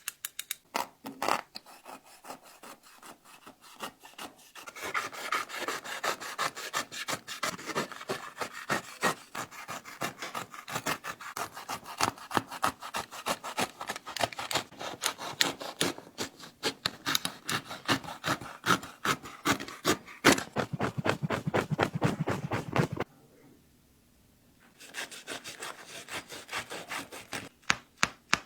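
Rapid back-and-forth sawing strokes cutting through a running shoe, several strokes a second, with a short pause a few seconds before the end before the strokes start again.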